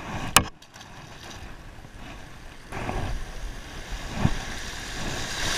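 Shallow ocean surf washing around a wading angler, with one sharp knock about half a second in; the wash of water grows louder about three seconds in.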